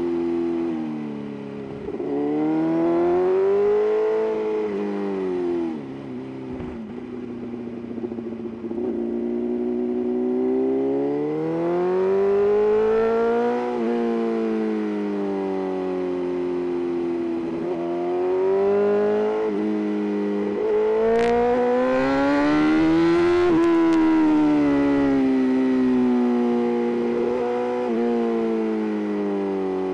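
BMW S1000RR inline-four engine and exhaust, revving up and falling back again and again under acceleration and deceleration, its pitch rising and dropping in long sweeps. A quieter, rougher stretch comes about six to nine seconds in.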